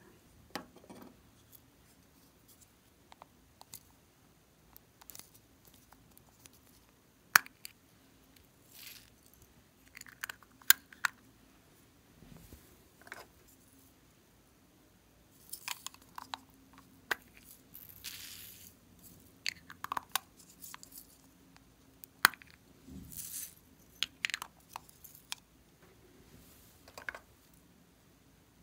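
Hard plastic bear-shaped toys being handled: irregular sharp clicks and taps of plastic, with brief rustling scrapes in between.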